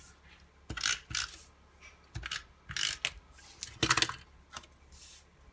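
Handheld adhesive tape runner rolled across cardstock in about seven short strokes, each a brief clicking rasp, the loudest about four seconds in.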